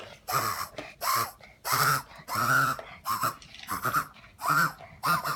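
A dog wheezing: a quick, regular run of rasping, noisy breaths, about eight in five seconds.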